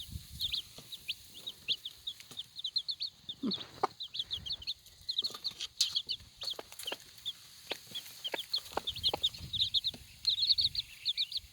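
Four-day-old chicks peeping constantly in quick, high-pitched chirps, with a mother hen clucking low now and then.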